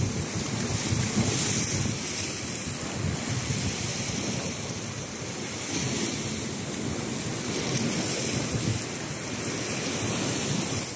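Sea waves washing and breaking against a rocky shore, with wind buffeting the microphone: a steady rushing noise that swells and eases.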